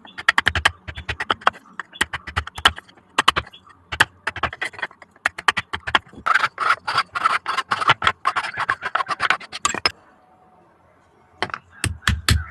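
Rapid hammer blows on metal, several a second, in runs with short pauses, dropping away to quiet about ten seconds in before the strikes start again near the end.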